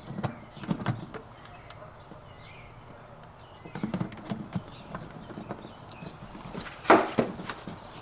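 Ring Video Doorbell clicking and knocking against its mounting plate as it is pushed and slid down onto the bracket. The knocks come in scattered groups, with the loudest about seven seconds in.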